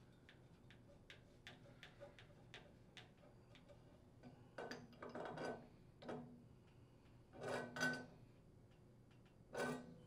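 Faint ticking clicks, then several short metallic clanks from about halfway in, the last near the end: a pipe wrench gripping and turning a copper discharge tube as it is threaded into a brass temperature and pressure relief valve.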